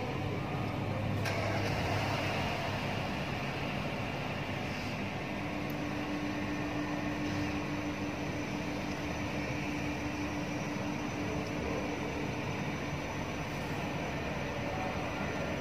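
Steady mechanical hum, with a faint steady tone that holds through the middle.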